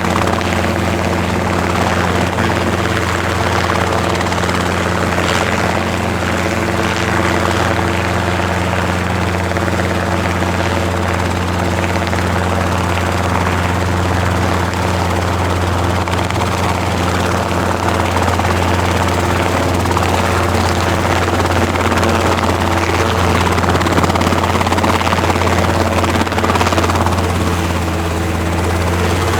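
Helicopter running steadily: a deep, even hum with a stack of higher engine tones and a rushing noise above it.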